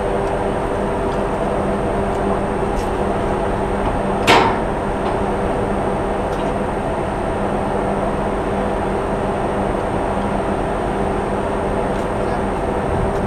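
Steady hum of ship's machinery running, with an even rush of wind or sea noise underneath. About four seconds in, a single sharp metallic clank rings briefly.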